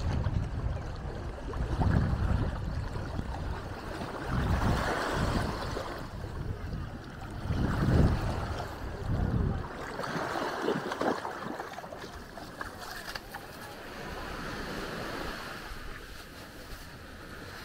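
Small waves washing over a shallow shore, with wind gusting against the microphone in a low rumble. The gusts drop away about ten seconds in, leaving the softer wash of the water.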